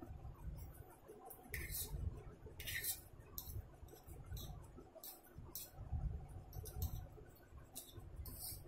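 Close-up eating sounds of a man chewing forkfuls of chow mein noodles: irregular soft clicks and ticks, with a fork working the noodles on a ceramic plate and a few short hissing strokes.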